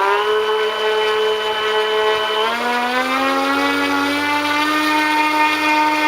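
RC model airplane motor spinning its propeller in a ground run-up, a steady whine that steps up in pitch about two and a half seconds in as the throttle is opened further, then holds.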